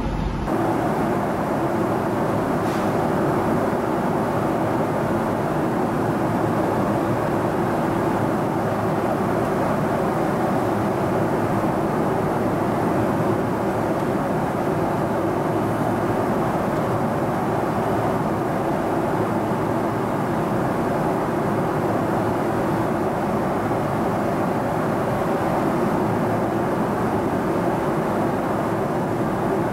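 Steady cabin noise inside a Boeing 777-200ER at cruise altitude: the even rush of airflow and engine hum, with a constant drone.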